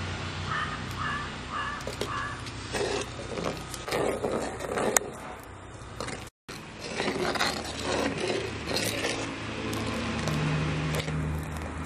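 Stainless steel skimmer ladle stirring and scraping against a clay cooking pot of simmering curry, in irregular bouts of scraping and clinking with a sharp clink midway.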